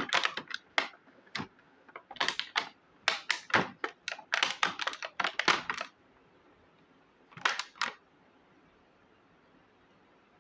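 Small plastic miniature kitchen toy pieces clicking and clattering as they are handled, in several bursts of quick taps with short quiet gaps, the last burst a little before eight seconds in.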